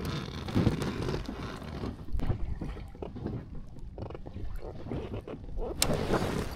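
Wind buffeting the microphone over water slapping against a small boat's hull, with scattered small knocks and one sharp click near the end.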